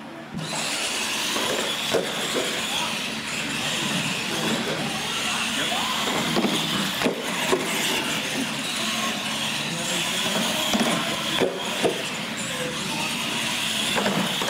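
Two radio-controlled monster trucks racing on a concrete floor: their electric motors and gears whine steadily from a sudden start, over the rolling of their tires. A few sharp knocks come as they bounce and land over the ramps.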